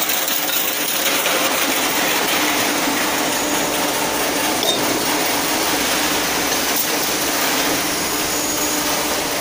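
Hydraulic power unit of a square-tube cutting machine running steadily: a constant hum with hiss, and a faint tick near the middle.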